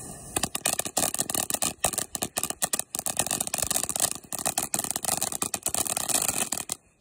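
Ground fountain firework crackling: a dense, rapid run of crackles and pops over a hiss, which stops abruptly near the end.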